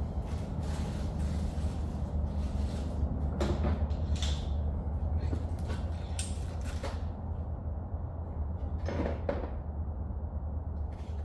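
Steady low electrical hum from a stud welder, with several short, sharp cracks and clacks spread through the middle as studs are welded onto the Commodore's steel body panel for dent pulling.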